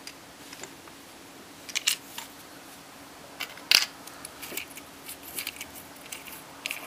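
Light clicks and taps of small flashlight parts being handled and fitted together: the head, reflector and lens ring of a Maglite AA flashlight, with one sharper click about midway.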